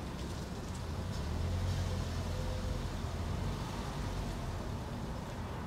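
Steady low rumble of city traffic, growing a little louder between about one and three seconds in.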